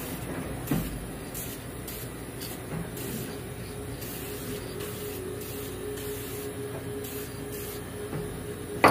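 Aerosol can of Dupli-Color vinyl and fabric paint hissing in a series of short spray passes, with a sharp click near the end.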